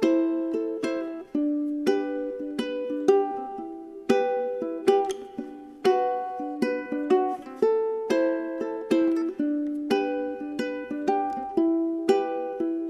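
Gentle background music played on a plucked-string instrument: single picked notes, about two or three a second, each ringing out and fading.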